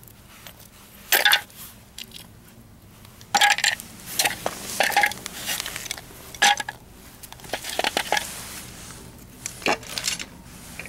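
Hard plastic parts of a dismantled kitchen mixer clattering and knocking as they are handled and dropped into the mixer's plastic housing: a string of irregular sharp clacks.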